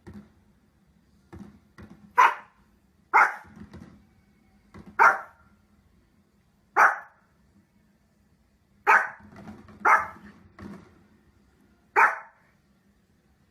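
A dog barking: seven loud, sharp barks spaced about one to two seconds apart, with fainter barks or yips in between.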